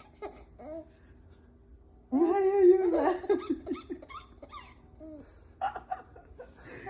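A baby laughing: a drawn-out squeal about two seconds in that breaks into choppy giggles, then a few shorter giggles near the end.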